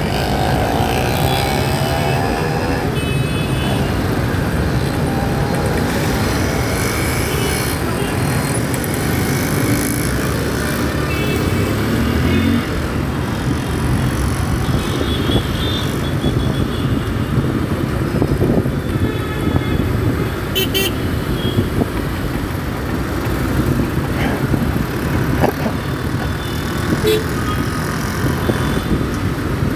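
Dense city road traffic heard from a moving two-wheeler in the thick of it, among auto-rickshaws, buses and motorbikes. Vehicle engines run steadily, and horns toot several times, around the start, about halfway, and again a few seconds later.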